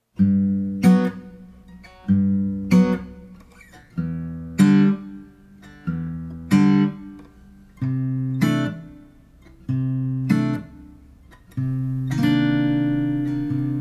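Acoustic guitar playing a slow instrumental intro, with a new chord about every two seconds, each one struck twice and left to ring out.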